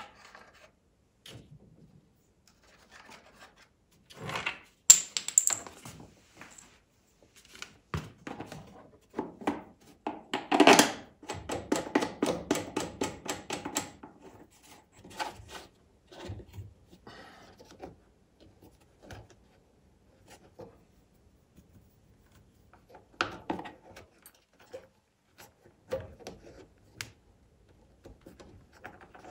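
Plastic air filter housing and cover being fitted back onto a small generator engine by hand: scattered knocks, rubs and clicks of plastic parts. A sharp click comes about five seconds in, and a few seconds of rapid, evenly spaced clicks follow around the middle.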